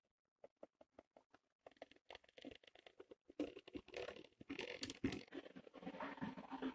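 Kleinbahn ÖBB 1245 model electric locomotive, driven by its original Kleinbahn disc-collector motor, running along the track. Faint scattered clicks build into a continuous rattle of wheels and motor, loudest from about three and a half seconds in as the loco passes close by.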